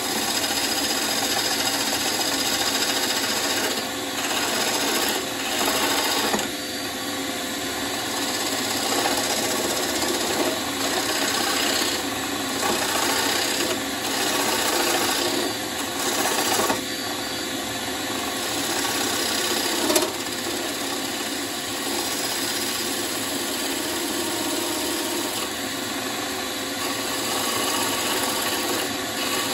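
Wood lathe running with a turning tool cutting into the spinning bowl blank: a continuous rough shaving noise over the steady hum of the lathe. The cutting noise drops off briefly every few seconds, and there is one short knock about twenty seconds in.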